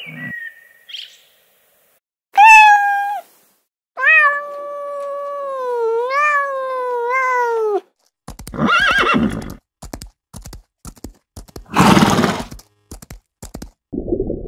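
Horse whinnying: a short neigh, then a long wavering whinny of about four seconds. It is followed by two rough, breathy bursts and a run of irregular hoofbeats.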